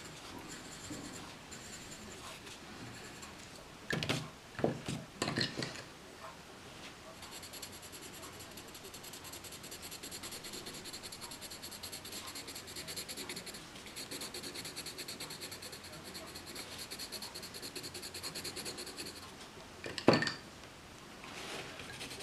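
Coloured pencil scratching on paper in quick back-and-forth shading strokes. A few knocks come about four to six seconds in, and one louder knock near the end, where pencils are swapped.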